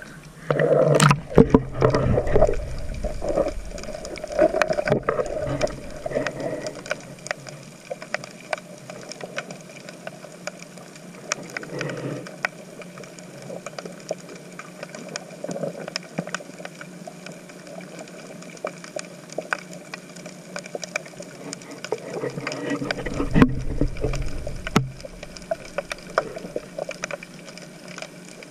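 Muffled underwater sound in shallow sea: sloshing and bubbling as a snorkeller goes under, then a steady crackle of small clicks over a low water hush. There is another burst of bubbling and movement about five seconds before the end.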